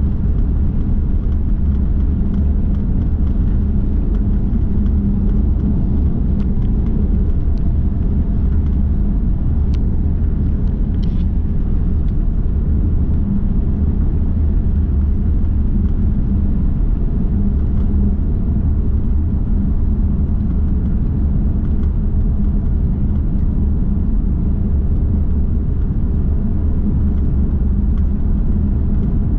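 Steady low rumble of a car cruising on a sealed road, tyre and engine noise heard from inside the cabin.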